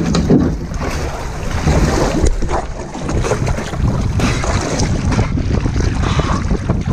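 Strong wind buffeting the microphone over choppy water, with waves splashing and sloshing against the hull of a capsized wooden sailing dinghy close by.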